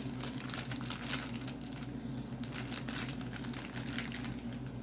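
Packaging crinkling and rustling as it is handled, with many small crackles, over a steady low hum.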